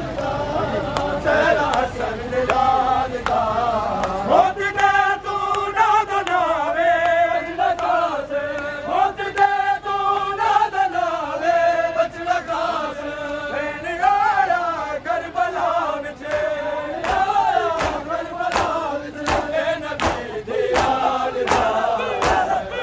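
A crowd of men chanting a noha, a Shia lament, in unison to a slow rising and falling melody. Rhythmic sharp slaps of chest-beating (matam) keep time, about two a second and clearest in the last third.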